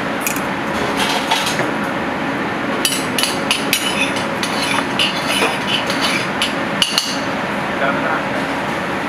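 Chef's knife cutting a seared portobello mushroom cap against a plastic cutting board, making a run of sharp taps and knocks, with two louder knocks about seven seconds in. A steady background noise runs underneath.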